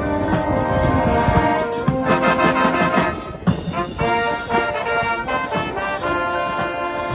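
Instrumental background music with sustained notes that change every second or so.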